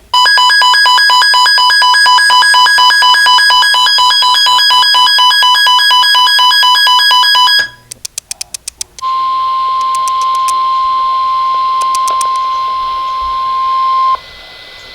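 Emergency weather alert tones: a loud electronic alarm beeping rapidly for about seven and a half seconds, a brief run of clicks, then one steady single-pitched warning tone for about five seconds. This is the weather radio warning alarm that signals an urgent warning, here a tornado warning, is about to be read.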